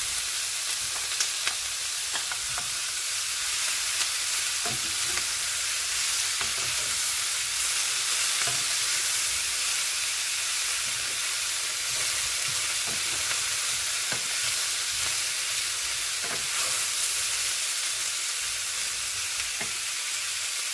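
Tofu cubes, onions and bell pepper strips sizzling steadily in oil in a frying pan, stirred with a wooden spoon that scrapes and knocks against the pan now and then.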